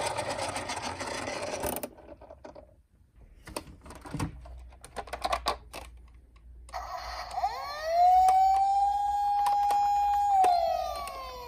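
Scattered light plastic clicks and taps from a toy minicar, then about two-thirds of the way in a toy police car's siren starts: a wailing tone that rises, holds steady for a couple of seconds, then falls near the end.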